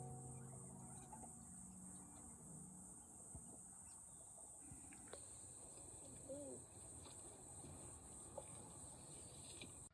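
Faint, steady high-pitched chirring of insects in a forest at night-time ambience level, cutting off abruptly at the end.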